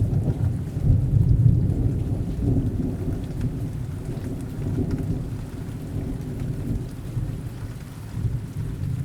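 Rain falling steadily with a low rumble of thunder, strongest in the first couple of seconds and slowly dying away.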